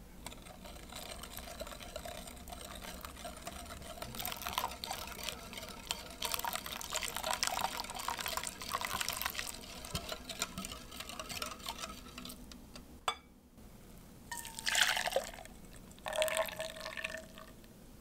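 A wire whisk stirring egg yolks, sugar and hot vanilla milk in a glass bowl, with liquid splashing and the whisk clicking steadily against the glass. Near the end, two short louder splashes as the custard mixture is poured back into the pot.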